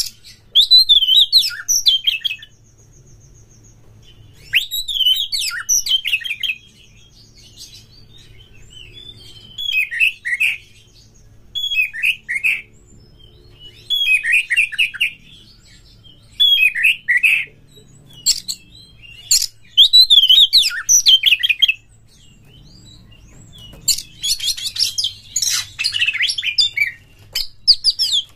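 Oriental magpie-robin (kacer) singing: about eight loud bursts of quick whistled and chattering notes, each one to three seconds long, with short pauses between them. The first two bursts carry a buzzy trill, and near the end a longer, harsher run of chatter.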